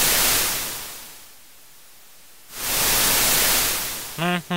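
Sea waves washing in, as a sound effect: two swells of rushing noise, each rising and then dying away. Near the end a ship's horn gives a short low toot.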